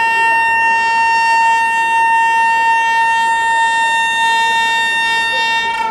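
Train horn sounding one long, loud, steady note that cuts off near the end, the horn blown as the departure signal for a waiting passenger train.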